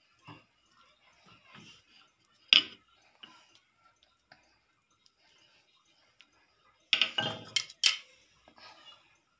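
Wooden rolling pin knocking on a stone chapati-rolling slab while parotta dough is rolled out: a few scattered sharp knocks, the loudest about two and a half seconds in, then a quick run of louder clattering knocks around seven to eight seconds in as the pin is laid aside.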